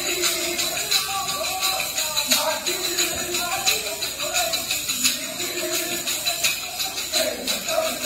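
Kolkali stick dance: many short wooden sticks clacking together in a fast, steady rhythm, with the troupe's folk song sung over it.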